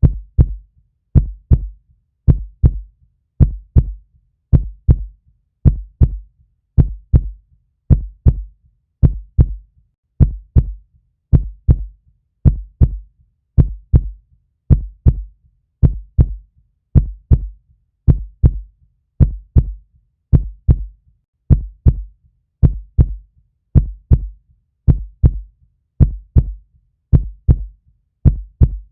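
Heartbeat: a steady, even rhythm of paired low thuds (lub-dub), about one pair a second.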